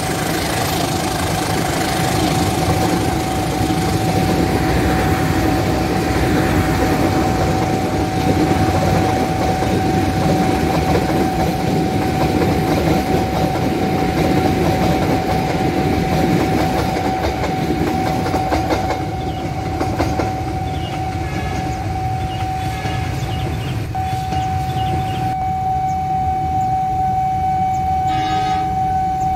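Passenger train coaches rolling past close by, the wheels clattering steadily over the rails, the rolling noise easing a little after about 18 seconds. A level-crossing warning alarm sounds throughout as one steady tone.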